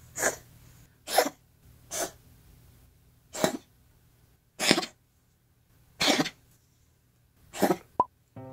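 Domestic cat coughing in a fit, seven short dry hacks about a second or more apart. It is an intermittent cough that clear lung X-rays and asthma medication did not explain, and that the owner believes came from dry indoor air.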